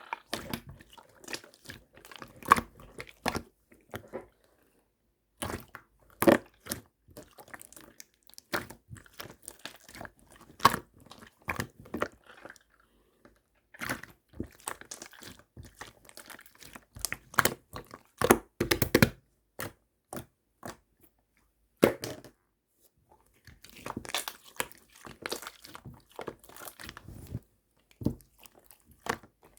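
Clear slime being squeezed, stretched and folded by hand, giving irregular bursts of sticky clicks, pops and crackles, with a few short pauses between handlings.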